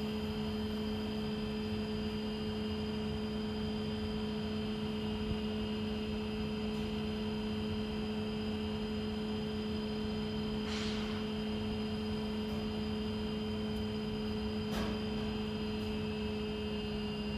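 Thermo Scientific Sorvall ST16 benchtop centrifuge spinning at about 1900 rpm, a steady hum made of several constant tones. Near the end the run timer reaches zero and the rotor begins to slow down.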